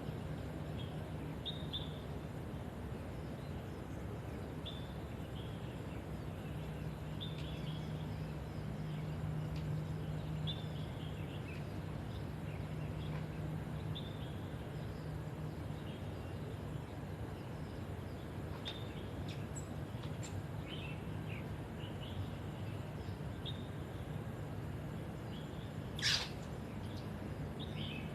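Small birds chirping in short calls every second or two over a steady low hum, with one brief, louder sharp sound near the end.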